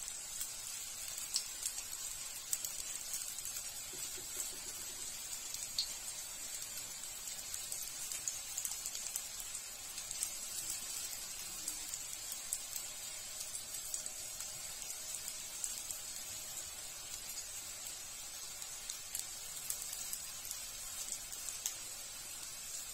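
Chives pakoras frying in a little hot oil in a steel kadai: a steady sizzle with many fine crackles.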